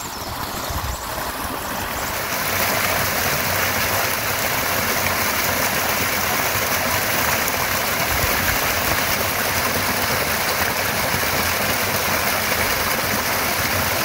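Small waterfall pouring over a rock ledge into a creek pool: a steady noise of falling and splashing water that grows louder over the first two seconds and then holds level.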